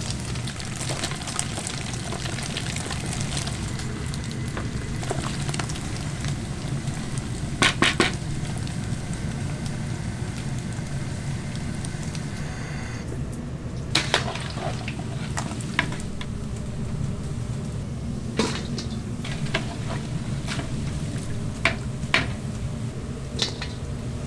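Beef sizzling steadily on a cast-iron grill plate, with scattered sharp clicks and knocks, a quick cluster of them about eight seconds in.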